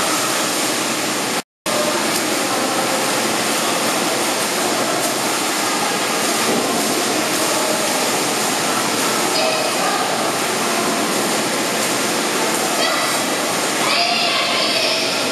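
Indoor pool noise: a steady wash of splashing water with indistinct voices in it, cut off completely for a moment about a second and a half in.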